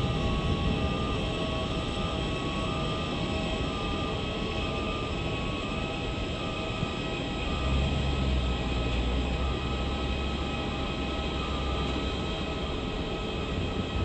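Steady mechanical drone of an airliner being pushed back by a towbarless tug, with many steady whining tones. Faint alternating two-note beeps fade out over the first half, and a deeper rumble swells about halfway through and eases near the end.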